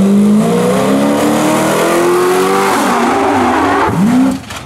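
Drill-team truck's engine revving hard as it accelerates from the line, its pitch climbing and dropping back at the gear changes. There is a brief swoop in pitch just before the sound cuts off.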